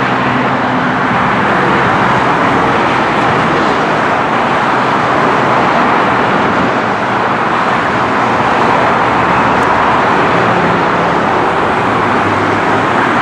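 Steady, loud road-traffic noise: vehicles driving past with engines running and tyre hiss, with no siren sweeping.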